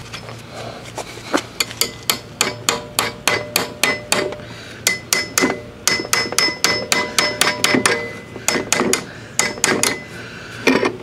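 Steel hammer striking the thin sheet-metal muffler guard of a Briggs & Stratton 550e mower engine to bend it out of the way. Rapid strikes, about three or four a second, each with a metallic ring, broken by a few short pauses.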